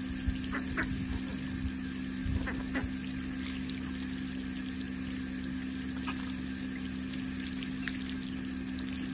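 Garden hose water splashing steadily onto gravel, over a steady low hum. A few short clicks and splashes in the first few seconds come from ducks dabbling their bills in a tub of water.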